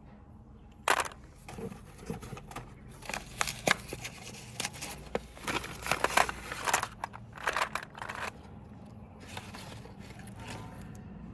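Packaging being handled and opened: a run of irregular crinkling, tearing and scraping noises that stop about three quarters of the way through, leaving a low steady background.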